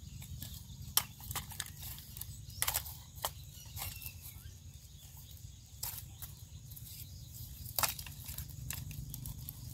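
Scattered light clicks and rustling as bamboo rat traps are handled and gathered up, over a low steady rumble.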